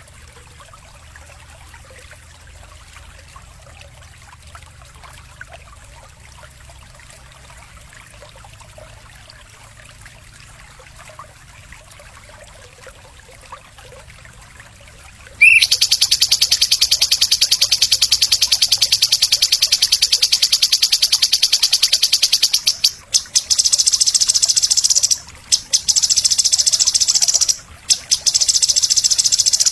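Faint hiss, then about halfway through a loud, very rapid, high-pitched buzzing trill starts suddenly, like a singing insect such as a cicada, and runs on with three short breaks near the end.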